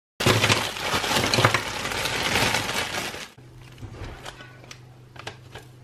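Plastic frozen-food bag of mini waffles crinkling loudly as it is handled, for about three seconds. It then cuts off abruptly to a quieter low hum with a few light clicks.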